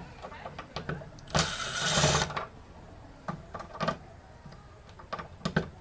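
A power screwdriver whirring for about a second, backing out one of the small screws on the TV's back panel. Scattered light clicks of the screws and tool come before and after it.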